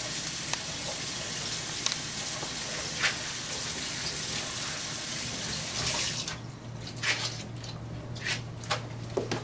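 Tap water running into a sink, steady for about six seconds while a fiberglass casting roll is wetted, then shut off. A few short clicks and knocks follow as the roll is handled and wrung out.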